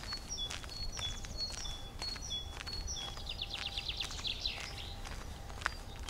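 A songbird singing: short whistled notes repeated about twice a second, breaking into a fast trill about halfway through. Footsteps on a dirt path sound underneath.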